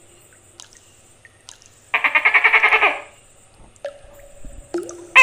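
Tokay gecko calling: a loud rattling call of rapid pulses about two seconds in, lasting about a second, then shorter calls near the end.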